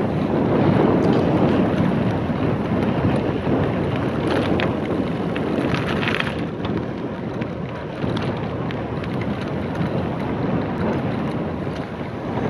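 Wind buffeting the microphone of a bicycle-mounted camera while riding, a steady low rushing noise.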